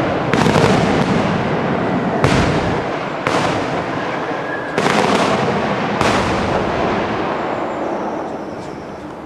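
Daytime aerial fireworks bursting overhead: about five loud bangs in nine seconds, each trailing a long rolling echo that runs into the next, dying away near the end.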